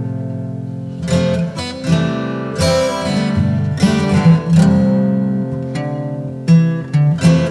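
Background music: acoustic guitar, plucked notes and strums, each note starting sharply and fading.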